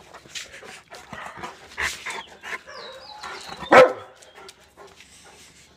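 Saint Bernard giving one loud bark a little under four seconds in, with softer short sounds before it.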